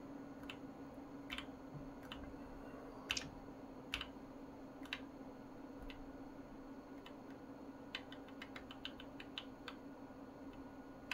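Computer keyboard keys pressed one at a time, about once a second, then a quick run of presses about eight seconds in, as the BIOS menu selection steps down row by row. A faint steady low hum runs underneath.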